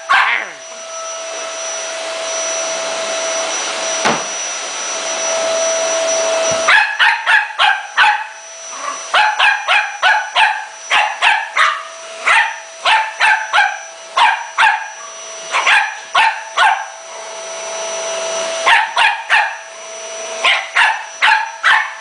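Vacuum cleaner running with a steady whine throughout, and a small dog barking at it in quick runs of sharp barks from about seven seconds in, with short pauses between runs.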